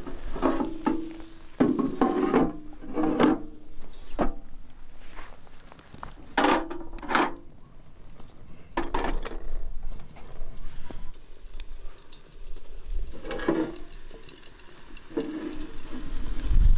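Scattered metal clanks and scrapes, each with a brief ringing tone, as a pan and a Turkish double teapot are handled on a small steel wood stove and the pan is slid into its oven.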